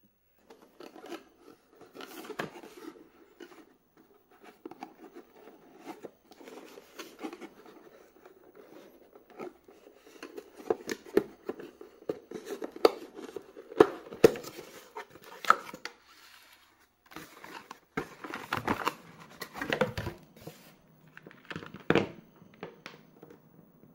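Hands opening a small cardboard box, its flaps rustling and scraping, then lifting out a power adapter and its coiled cord, with clicks and knocks as they touch the table.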